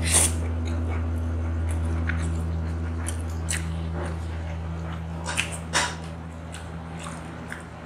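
A person eating noodles: a slurp as a mouthful goes in at the start, then two sharp mouth smacks a little over five seconds in. Under it a low steady hum slowly fades.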